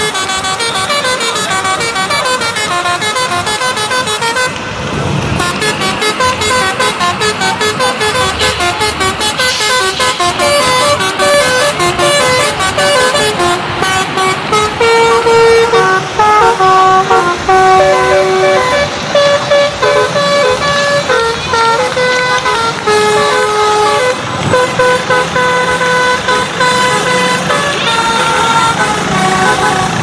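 Bus telolet horn, a multi-tone horn playing a tune of short held notes that step up and down in pitch, over a bus engine running.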